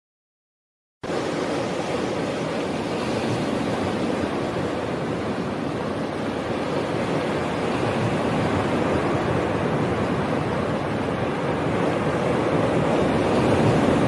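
Steady rushing roar of ocean surf. It starts abruptly about a second in and grows a little louder toward the end, with no single wave breaks standing out.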